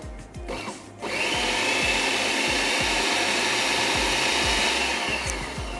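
Electric food processor running as it chops spinach leaves pressed down its feed tube. The motor starts about a second in, runs steadily, and tapers off near the end.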